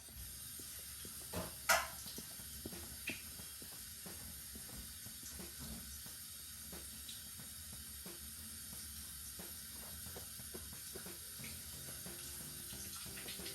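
A cat eating raw tuna: irregular soft, wet smacking and licking clicks over a steady hiss.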